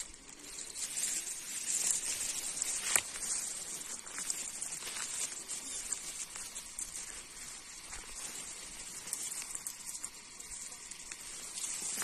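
Grass and leaves rustling and crackling as someone pushes through dense vegetation, with one sharp snap about three seconds in.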